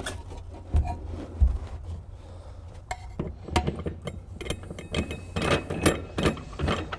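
Spare tire being set back into the SUV's cargo well: two low thumps about a second in, then a run of quick clicks and knocks as it is fitted and secured.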